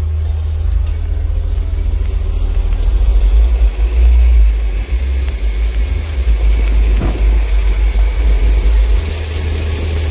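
Kicker L5 15-inch subwoofers playing music from inside the truck, heard from outside as a loud, deep bass boom. The bass notes change every second or two, and little of the rest of the song comes through.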